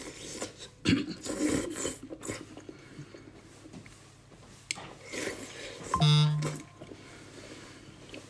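Someone eating instant noodles: chopsticks clicking on the bowl, with slurping and chewing. About six seconds in comes one short pitched sound, the loudest moment.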